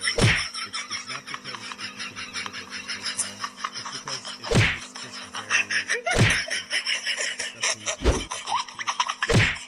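A person laughing, with several loud bursts spread across the few seconds.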